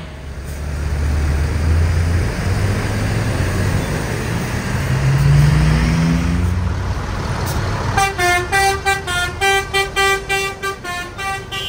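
A big tour bus's engine running, its pitch rising as it pulls along. About two-thirds of the way in, a multi-tone telolet musical horn starts playing a quick run of short notes at several pitches, about three or four a second.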